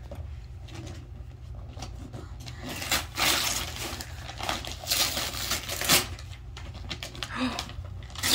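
Wrapping paper and packaging rustling and tearing in short bursts as a child unwraps a present, with a sharp click about six seconds in.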